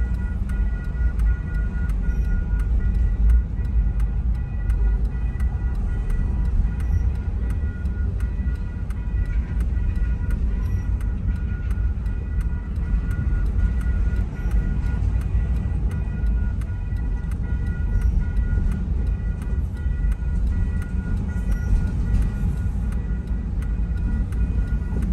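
Double-stack container freight train rolling steadily past a grade crossing, a continuous low rumble heard from inside a car.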